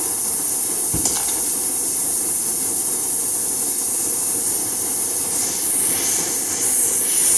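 Compressed air hissing steadily out of the magic-angle-spinning stator of a solid-state NMR probe, with a single click about a second in. The rotor does not spin: parts that keep the air in have not been fitted, so all the air escapes.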